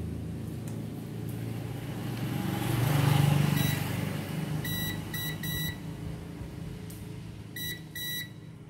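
VC890C digital multimeter beeping in short chirps as its test probes touch the iron's heating-element terminals, its continuity buzzer signalling a closed circuit. There are three beeps around five seconds in and two close together near the end. Under them a low rumble swells and fades, loudest about three seconds in.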